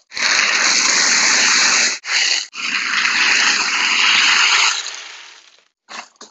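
Expanded clay pebbles (hydroton) pouring in a dense rattling stream into a plastic hydroponic grow-bed tub. The pour comes in two long runs with a short break about two seconds in, and the second run tails off. Near the end there are a few short rattles as hands spread the pebbles.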